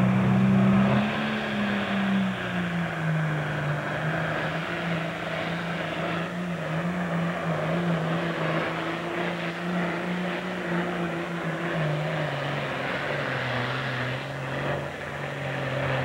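Super Farm class pulling tractor's turbocharged diesel engine running hard under full load down the track. Its steady note sags in pitch about a second in and again about twelve seconds in as the engine lugs down against the weight transfer sled.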